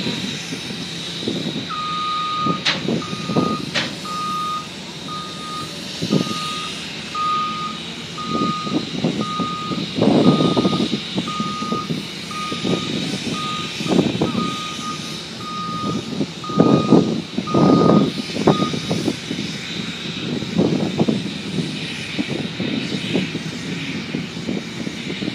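Backup alarm of a reversing heavy vehicle, a single-tone beep repeating a little over once a second, stopping about three quarters of the way through. Irregular louder low rumbles from the working machinery run underneath.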